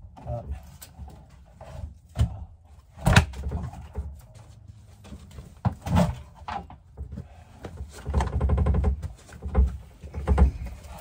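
Knocks and thumps of a 30-gallon water heater tank being rocked and shifted in a tight cubby, with a scraping rattle lasting about a second as the tank drags.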